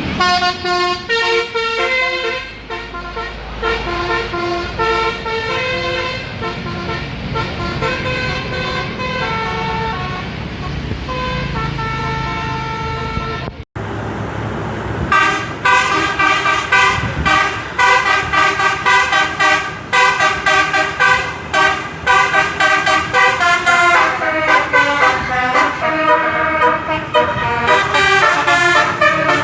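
Bus telolet horn, an 18-note multi-tone horn, playing quick melodic tunes note after note. About halfway through it breaks off for a moment, then comes back louder with a faster run of notes.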